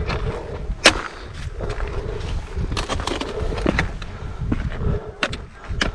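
Footsteps crunching on rocky scree and a trekking pole's tip striking stone in sharp clicks, the loudest about a second in and two more near the end, over wind rumbling on the microphone.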